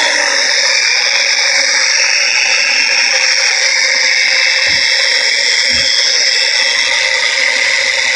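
Flex XFE 7-12 mini polisher running steadily at a low speed setting, about 2,000 oscillations per minute, its foam pad buffing compound on a 3D-printed plastic helmet.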